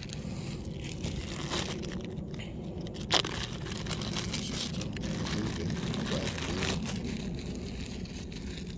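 Plastic bait bag crinkling and rustling as it is handled, with a single sharp click about three seconds in, over a steady low rumble.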